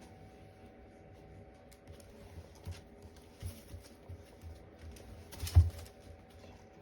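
Small USB fan running with a faint steady hum, overlaid by a string of irregular light taps and clicks, with one louder knock about five and a half seconds in.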